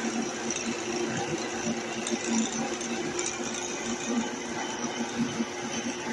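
Sanches Blanes FBM20 bench drill running with no load: a steady motor hum with an uneven light rattle.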